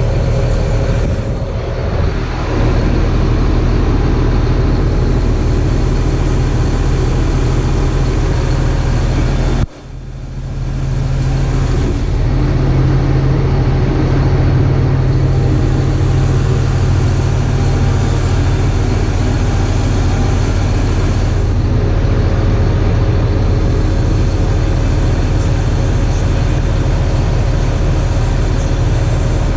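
Tractor engine running steadily with a low, even hum. It drops out abruptly for a moment about ten seconds in, then comes straight back.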